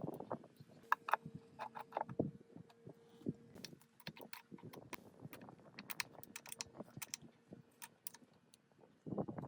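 Metal parts clinking and knocking in irregular clicks and taps as they are handled, with a louder cluster of knocks near the end.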